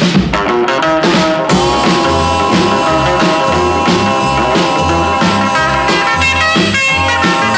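Karaoke backing track playing an instrumental break of a 1950s rock and roll song: a band with a steady bass pulse and guitar, and no lead vocal.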